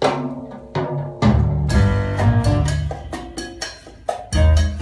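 Music from a vinyl record played through a hi-fi system with Wilson Audio Watt Puppy 7 loudspeakers: drums and percussion over deep bass and pitched notes, starting with a sudden hit.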